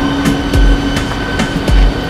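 Footsteps thumping about once a second while walking through a busy rail station concourse, over a steady machine hum with a high whine and scattered clicks.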